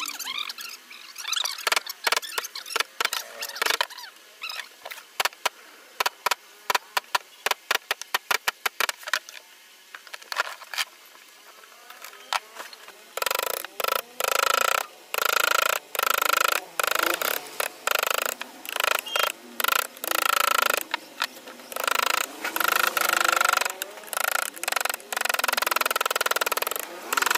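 Wooden mallet tapping a carving chisel into hardwood in quick, light strokes. About halfway through the sound changes to a run of short rasping strokes, each about a second long, as the chisel cuts along the carved outline.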